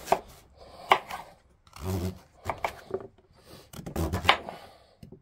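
Knife chopping a celeriac into rough chunks: about six separate sharp chops at an uneven pace, with duller sounds of the blade pushing through the dense root in between.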